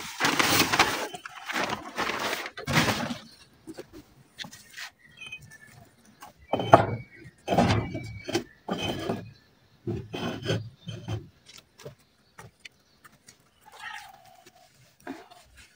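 Dry red dirt chunks being handled and broken apart, with gritty crumbling and crunching in irregular bursts, heaviest in the first few seconds and again about halfway through. A short faint squeaky call sounds near the end.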